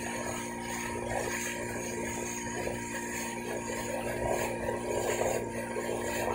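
Small boat's engine running steadily under way, with water rushing and splashing along the hull.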